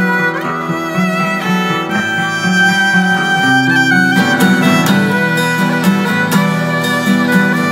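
Violin playing a melody with sliding notes over acoustic guitar accompaniment, which turns to strummed chords about halfway through.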